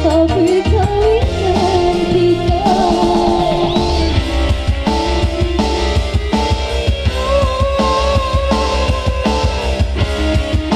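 Live music from a keyboard stage band: an electronic keyboard plays over a steady drum beat, with a woman singing into a microphone in the first few seconds and a long held melody note later on.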